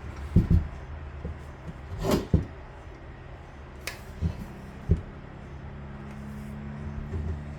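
Scattered light knocks and clicks of the outboard motor hood being handled and shifted during inspection, over a steady low hum.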